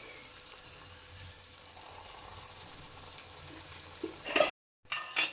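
Vadai fritters of ground rice and prickly amaranth leaves deep-frying in hot oil in a kadai, a steady sizzle. Near the end a brief louder clatter, a sudden gap of silence, then a few sharp clicks.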